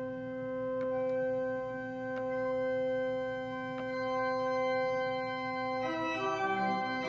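Pipe organ principal chorus (8', 4', 2 2/3' and 2' principals with a four-rank mixture) holding one steady note, the upper ranks, tuned to the natural overtones of the 8', blending into a single bright tone. About six seconds in, more notes are played together as a chord.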